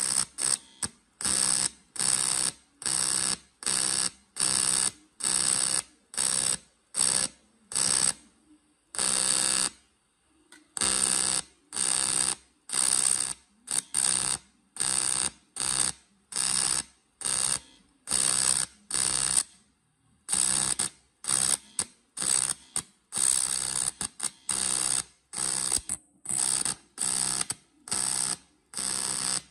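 TIG welding arc on a cast aluminium gearbox casing: a harsh buzzing arc pulsing on and off about twice a second as the filler rod is fed into the crack, pausing briefly a third of the way in and again about two-thirds through.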